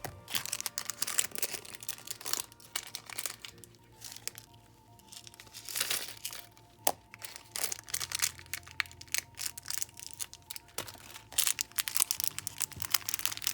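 Plastic packaging crinkling and rustling in irregular bursts as a small bag of nail charms is handled and opened, over soft background music.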